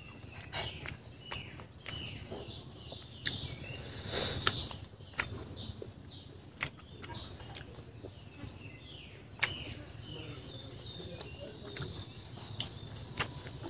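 Close-up eating sounds of a man chewing pork barbecue and rice eaten by hand, with sharp lip smacks and mouth clicks scattered throughout. Birds chirp in the background.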